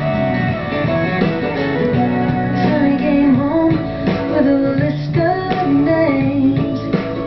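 Background music: a song with acoustic guitar and a woman singing.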